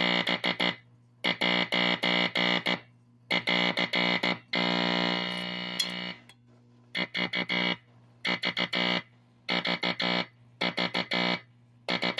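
Tube code-practice oscillator sounding Morse code from a Teleplex machine: a buzzy tone keyed in quick groups of dots and dashes with short gaps between, and one long held tone about halfway through. A low hum runs steadily underneath.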